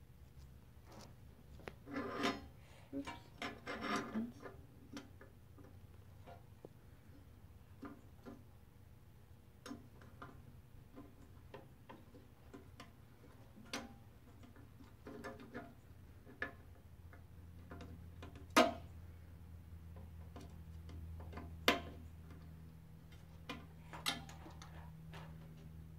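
Hands handling cables, plugs and a screwdriver inside a resin 3D printer's metal housing: rustling and scattered light clicks and knocks, with three sharper clicks in the second half. A low steady hum comes up past the middle.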